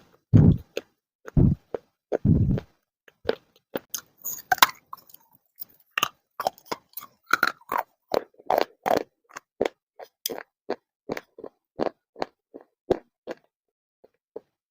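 A person biting and chewing crunchy clay. A few heavy, low bites come first, then a long run of short crisp crunches, about two or three a second, that stop near the end.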